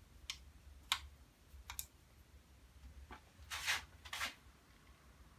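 Watercolour paintbrush tapping and brushing: several light clicks, then two longer scratchy strokes about three and a half and four seconds in.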